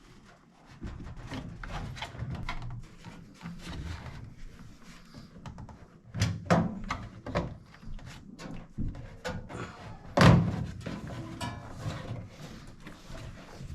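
Clicks, knocks and thunks of hands working on a microwave's blower motor and its metal housing, repositioning the motor so it exhausts through the top. There is a cluster of louder knocks about six and a half seconds in, and the loudest single thunk comes about ten seconds in.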